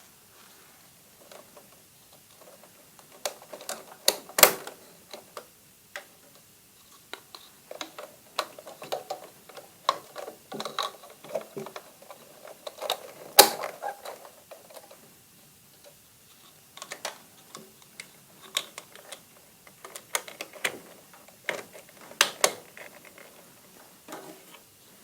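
Irregular clicking and tapping with quiet gaps, and two sharper, louder knocks about four and a half and thirteen and a half seconds in.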